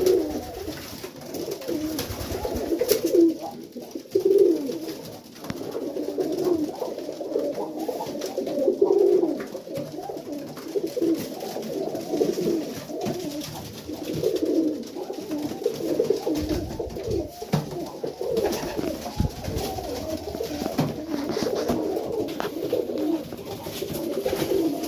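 Flock of young domestic pigeons cooing continuously in a small loft, many low overlapping coos.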